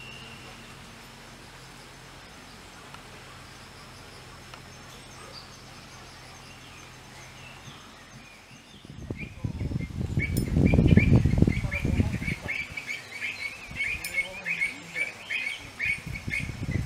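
A bird chirping rapidly and repeatedly, several short high chirps a second, starting about ten seconds in and going on for about six seconds. A loud low rumble sets in just before the chirping, after a stretch of faint steady hum.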